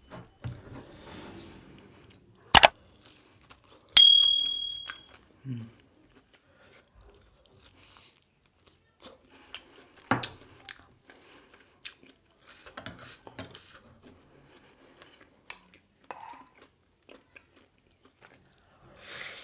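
Close-up eating sounds: chewing and biting on grilled pork and rice, with sharp clicks of a spoon against the plate. One clink about four seconds in rings on briefly.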